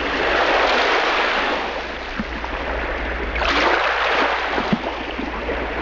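Waves washing onto a shore: a steady rush of surf that swells about half a second in and again about three and a half seconds in.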